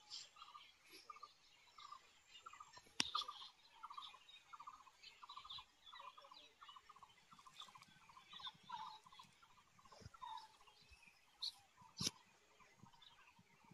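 Faint series of short animal calls repeating about twice a second, with two sharp clicks, one about three seconds in and one near the end.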